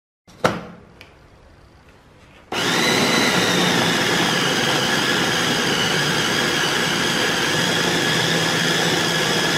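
A single knock, then about two and a half seconds in a HAYASA electric meat chopper switches on, its motor whining steadily as the blades grind raw pork in the glass bowl.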